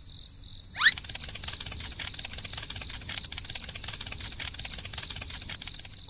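Crickets chirring steadily. About a second in comes a short, sharp rising whistle-like glide, then a fast, continuous clicking rattle.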